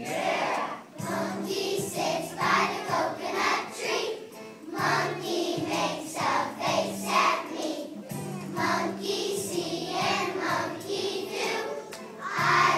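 A choir of young children singing a song together, phrase after phrase without a break.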